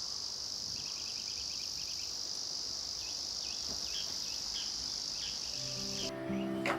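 A steady, high insect chorus of crickets or cicadas, with short chirps in a quick run and then spaced out. Near the end the insect sound cuts off suddenly and gentle music begins.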